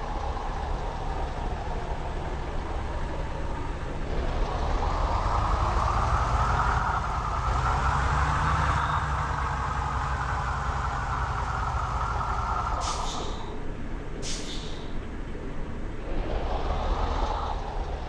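Heavy road vehicles passing close by: engine and tyre noise swells and fades, then two short sharp air hisses come about a second and a half apart, and another vehicle approaches near the end. No horn sounds.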